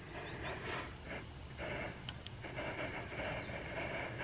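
Gas hissing from a screw-on canister camp stove's burner as it is lit, with a faint click about two seconds in. Crickets trill steadily alongside.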